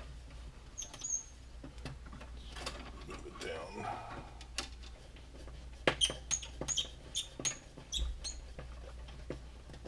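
Small metal clicks and light, tinny pings from hand tools working a copper ground wire inside a metal breaker panel: a couple of clicks about a second in, then a quick run of about ten clicks between six and eight and a half seconds in.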